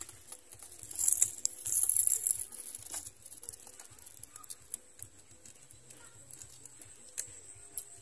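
Dry grass and nest material rustling and crackling close to the microphone, in scattered clicks with a louder burst of rustle about a second in, then fainter crackles.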